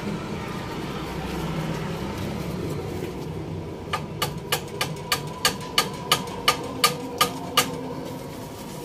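A steady low hum, then from about four seconds in a run of about a dozen sharp metallic taps, roughly three a second, each with a short ring, stopping a little over a second before the end.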